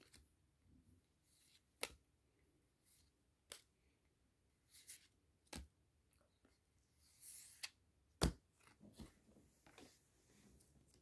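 Trading cards being flipped through by hand and laid down on a play mat: sparse, quiet snaps and clicks of card stock, with a soft sliding swish about 7 seconds in and the sharpest click about a second later.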